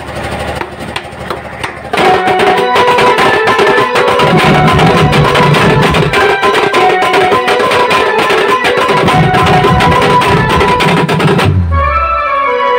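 Sambalpuri band-party music: dhol barrel drums beaten in a fast, dense rhythm, joined about two seconds in by a melody of long held notes as the whole band plays louder. Near the end the high part drops away briefly under a low boom.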